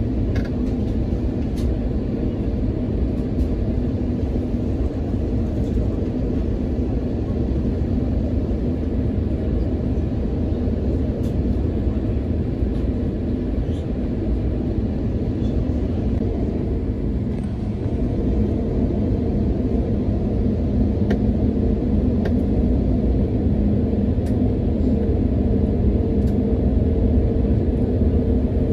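Cabin noise of an Airbus A350 airliner taxiing: a steady low rumble with a low hum, which grows a little louder a little past halfway through.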